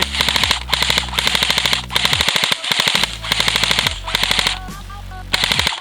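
Airsoft gun firing on full auto in several quick bursts of rapid shots, with short pauses between bursts.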